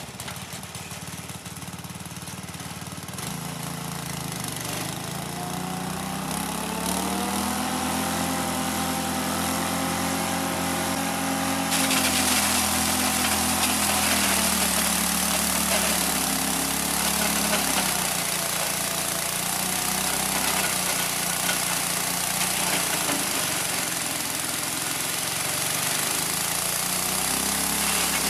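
Small single-cylinder 6.5 HP engine driving a multifunction chopper-grinder. It starts abruptly and speeds up over the first several seconds. From about twelve seconds in, corn cobs are fed in and ground to powder, adding a loud harsh grinding rush, while the engine note dips and wavers under the load.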